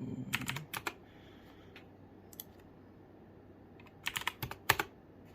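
Computer keyboard keystrokes in two short clusters: a few taps near the start and a quicker run of keystrokes about four seconds in.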